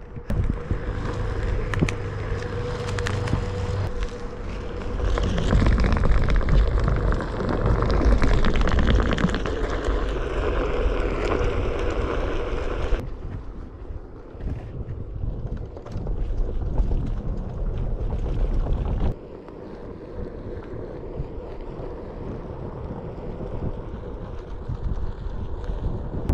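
Wind buffeting the microphone over the rumble of a Onewheel GT rolling along a trail, with a steady hum in the first half. The sound drops abruptly about halfway through and again later, then runs on quieter.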